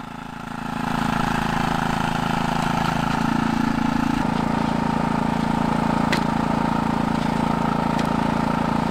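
Snowblower engine running steadily under load as it clears snow, growing louder within the first second and then holding an even pitch.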